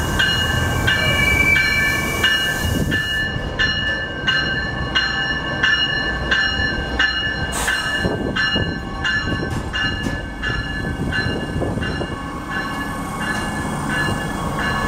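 NJ Transit River Line diesel light rail train, a Stadler GTW railcar, pulling into the station over a low rumble of engine and wheels. A bell rings steadily about twice a second, with a single sharp click about halfway through.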